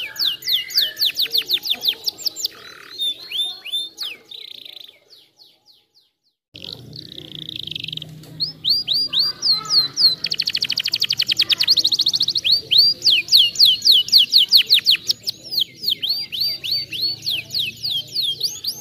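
Domestic canary singing: fast runs of repeated down-slurred whistled notes and rapid buzzy trills. The song thins out about four seconds in, stops for a couple of seconds, then starts again.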